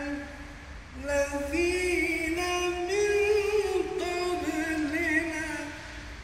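A man's voice reciting the Quran in melodic chant. One phrase ends, a short breath follows, then a long phrase of held notes with ornamented turns, which fades out near the end.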